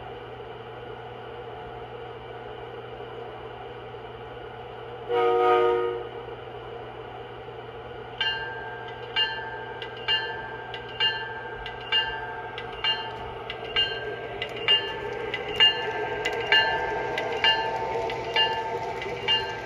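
MTH RailKing O-gauge Virginian E-33 rectifier electric locomotive's onboard sound system: a steady idling hum, one short horn blast about five seconds in, then the bell ringing about once a second as the locomotive pulls its freight train away.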